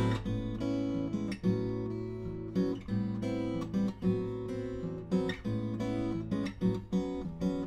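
Solo steel-string acoustic guitar played fingerstyle: a jazz chord-melody arrangement, with plucked chords and melody notes over sustained bass notes in a steady pulse.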